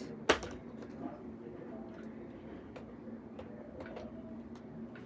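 Hoover Linx cordless stick vacuum twitching: one sharp click about a third of a second in, then faint, irregular ticks over a low steady hum. The ticking is a sign of its failing motor.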